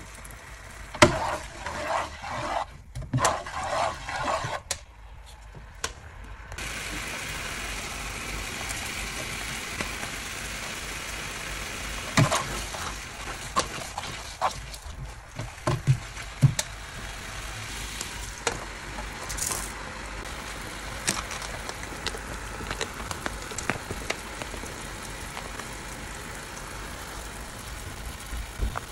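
Soy-and-mirin sauce with ginger sizzling steadily as it simmers in a non-stick frying pan, the sizzle setting in sharply a few seconds in. Near the middle, a spatula stirs the sauce and knocks against the pan several times.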